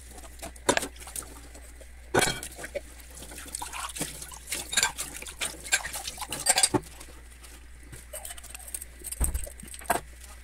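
Dishes being washed by hand at a kitchen sink: a sponge scrubbing, and scattered clinks and knocks of glass and crockery set down and handled. The tap runs briefly partway through.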